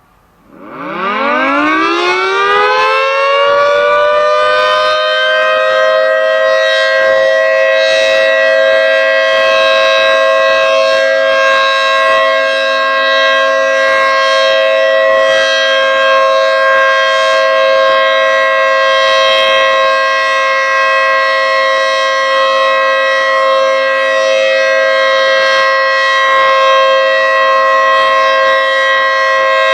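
Federal Signal 3T22 three-tone tornado siren starting up about half a second in, its pitch rising over a few seconds, then holding a steady loud chord of several tones: the siren's alert signal.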